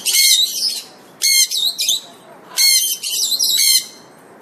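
Pet parrot squawking: three bursts of loud, harsh calls with short pauses between them.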